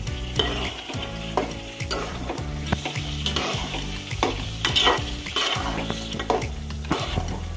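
Metal spatula stirring and scraping potatoes and okra frying in a metal pot, with the oil sizzling underneath. Repeated, irregular scrapes against the pot sides as the spiced vegetables are sautéed.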